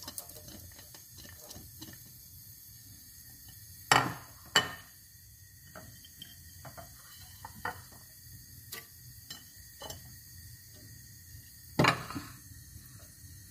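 Sharp clinks and knocks of dishes and cookware: two loud ones about four seconds in, a scattering of faint ticks, and another loud knock near the end.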